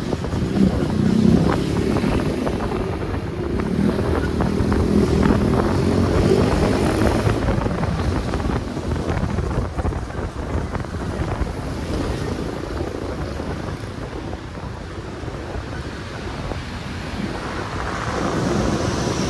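Wind buffeting the microphone while riding along the road, over the running of vehicle engines. The engine tones are plainest in the first several seconds and ease off toward the middle.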